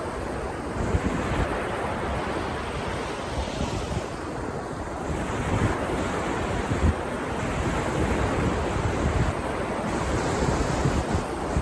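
Ocean surf washing onto a beach in a steady, rushing wash that swells a little midway, with wind gusting on the microphone as low rumbles.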